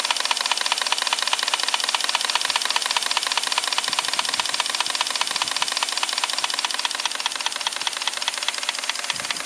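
EIWI model twin-cylinder horizontal steam engine running at speed, with a rapid, even clatter from its turning crank and rods.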